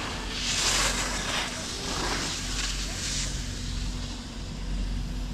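Skis sliding and scraping over snow in hissing swells during the first three seconds, over a steady low rumble of wind on the microphone.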